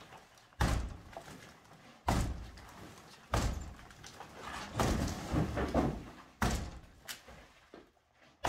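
About five heavy axe blows into a timber stud wall of wooden lath and studs, roughly one every second and a half, each followed by a short rattle of breaking lath.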